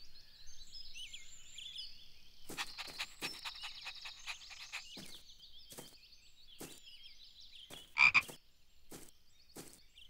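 Cartoon frog croaking sound effects: a string of short croaks with high chirping behind them, and one louder croak about eight seconds in.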